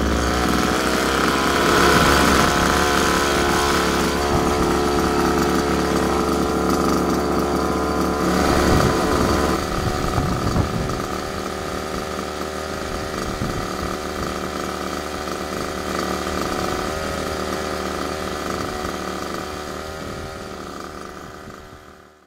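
The freshly rebuilt 29cc two-stroke engine of an HPI Baja 5T RC truck, fitted with a tuned pipe, idling just after starting, run to heat-cycle the new piston, ring and cylinder. It gets a little quieter about ten seconds in and fades out near the end.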